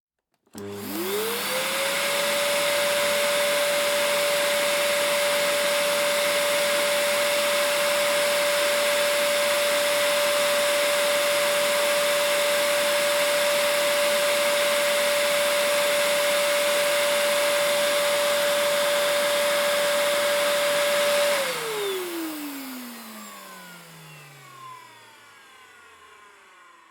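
Vacuum cleaner switched on, its motor whine rising quickly to a steady pitch over a loud rush of air. It runs evenly for about twenty seconds, then is switched off, and the whine falls away as the motor spins down.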